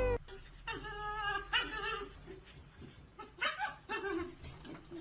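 A dog whining in short pitched cries, three times.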